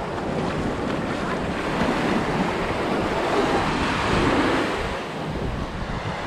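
Small ocean waves breaking and washing up the sand at the shoreline, with wind buffeting the microphone. The surf swells louder in the middle and eases near the end.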